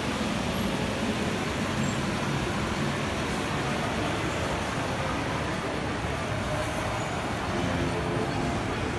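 Steady background din, an even noise with no clear voices or distinct events.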